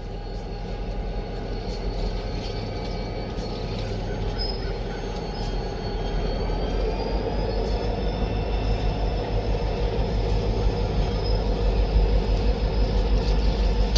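Loaded freight train rolling by: a steady rumble of the cars with thin, high-pitched wheel squeal, growing gradually louder.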